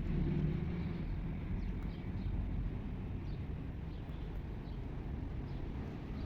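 Steady low outdoor rumble, with a few faint, short, high chirps scattered through it.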